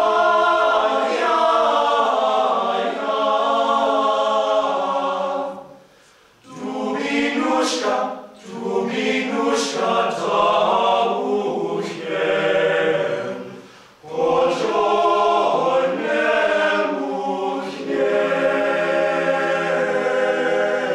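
Men's vocal ensemble singing a cappella in several parts, held chords in phrases with brief pauses between them.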